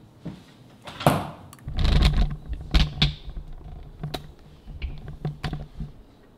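Handling noise from a phone camera being picked up and moved: a brushing rustle about a second in, a low rumble around two seconds, then a string of sharp knocks and clicks.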